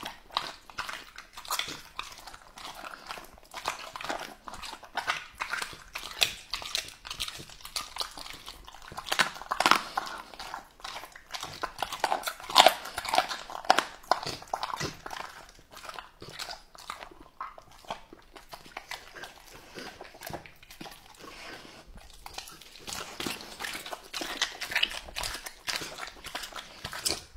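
Rottweiler chewing and tearing at raw meat, a fast, irregular run of bites and crunches. It is loudest around the middle and quieter for a few seconds after.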